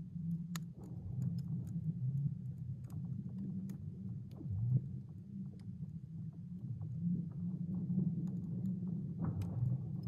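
Thawing lake ice in spring, making a low continuous rumble dotted with many small, sharp clicks and ticks as the ice cracks and shifts.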